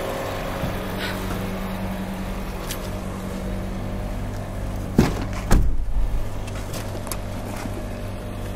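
Steady low mechanical hum in an underground concrete car park, with two heavy thumps about five seconds in, half a second apart.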